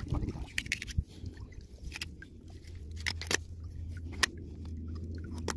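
Kitchen knife cutting through alligator hide: irregular crunching and sharp clicks as the blade works along the belly scales. A low steady hum comes in about a second and a half in.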